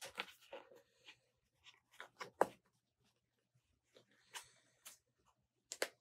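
Faint, scattered rustles and taps of folded paper being handled while a rubber band is threaded through its punched holes, with one sharper tap about two and a half seconds in.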